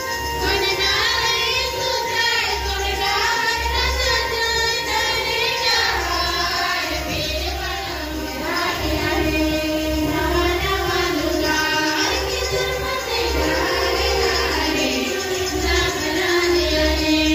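Music with singing voices carrying a melody over a steady low beat.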